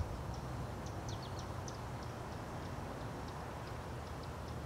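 Outdoor ambience: scattered short, high chirps of small birds, a few falling in pitch, over a steady low hum. A soft low thump right at the start.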